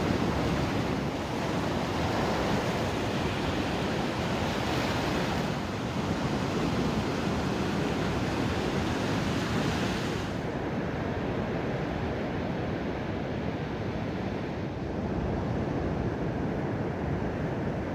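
Ocean surf washing steadily on a beach, with wind on the microphone; the higher hiss of the surf drops away about ten seconds in.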